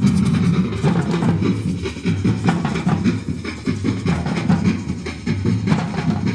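Latin drums played in a busy rhythm at a sound check, with many quick hits over a dense low body.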